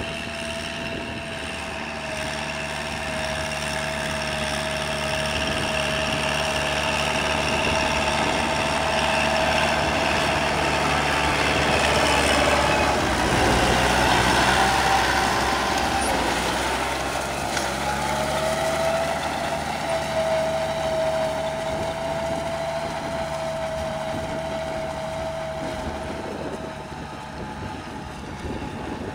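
Kubota L5018VN tractor's diesel engine working under load while its rear rotary tiller churns the soil, with a steady whine over the engine. It grows louder as the tractor comes close about halfway through, then fades as it moves away.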